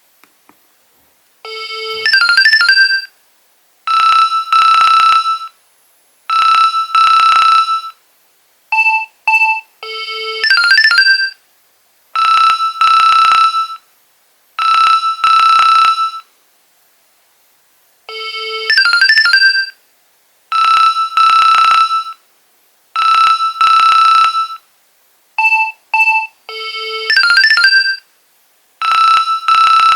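Nokia 2300 mobile phone ringing with an electronic melody ringtone. A short phrase repeats about every eight and a half seconds: a quick trill, two long held tones, then a couple of short notes.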